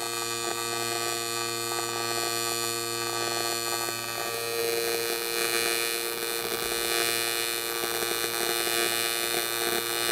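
AC TIG welding arc on an AZ92 magnesium casting, a steady buzzing hum with many evenly spaced overtones, its tone shifting slightly about four seconds in.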